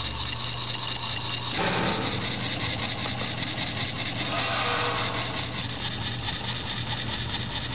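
Small model Stirling engine running on a spirit lamp's heat, its crank, connecting rods and flywheel making a steady mechanical clatter. It grows a little louder from about a second and a half in for a few seconds.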